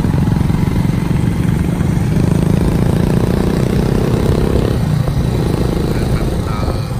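Small motorbike engines running steadily as a group rides along together, the nearest engine droning loudly at a fairly even pitch.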